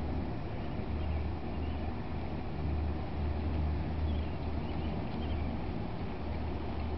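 Steady low rumble of a Trillium-class lake bulk carrier's diesel machinery as the ship moves slowly by, the hum swelling and easing a little.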